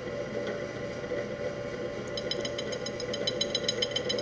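Milling machine spindle running steadily with a 5-inch, 3/32-inch slitting saw turning at 397 RPM. About two seconds in, the saw starts cutting under slow manual feed, and a rapid, even, rattling clatter of teeth striking the work sets in and grows louder.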